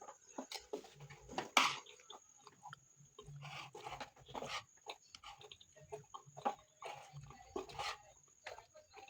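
Close-miked eating sounds: a mouthful of rice and bean stew being chewed, with irregular wet mouth clicks and smacks.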